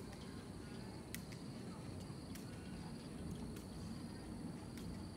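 Insects in the trees below a steady high-pitched buzzing chorus, with a faint sharp click about once a second and a low rumble underneath.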